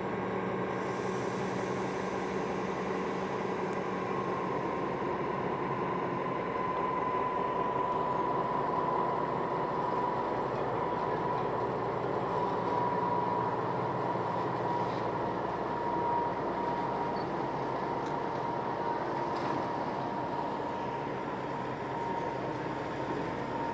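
DB Class 364 (V 60) diesel shunting locomotive idling steadily on a slowly turning railway turntable, with a steady high-pitched whine over the engine hum.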